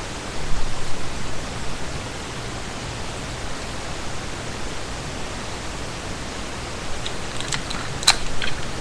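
Steady hiss of background noise with a faint low hum, and a few light clicks near the end.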